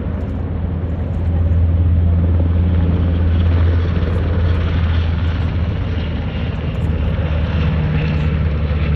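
Firefighting helicopter flying low with a water bucket slung beneath, its rotor and engine making a loud, steady drone that swells about a second in.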